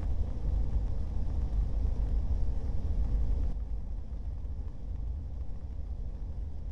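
Dense, continuous rumble of hundreds of motor-driven balls on strings striking the inside wall of a steel industrial tank, heard muffled from outside the tank. The high end drops away about three and a half seconds in.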